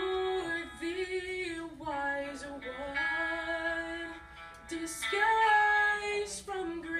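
A woman singing a slow melody into a microphone, holding long notes, with a higher, louder held note about five seconds in.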